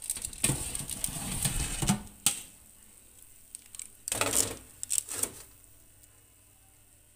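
Metal baking tray being pulled out of the oven on its rack: scraping and clattering for about two seconds, ending in a sharp clack, then another short bout of rattling about four seconds in.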